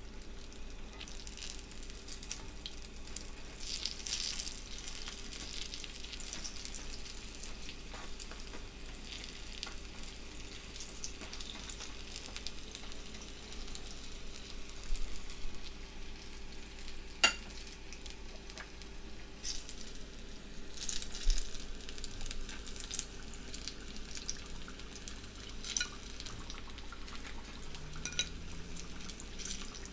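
Batter-coated potato slices deep-frying in hot oil, a steady sizzle with scattered crackles and spatters. A single sharp click comes a little past the middle.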